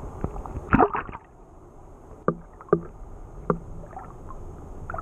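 Water splashing as a small barramundi is released by hand, with a loud splash about a second in. The sound then turns muffled, as heard with the camera under the water, broken by three dull knocks.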